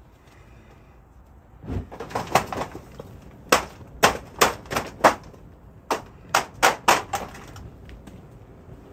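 A run of about a dozen sharp cracks and knocks as a Petrobond sand mould is broken open around a freshly poured aluminium bronze casting. They come in quick succession and stop about seven seconds in.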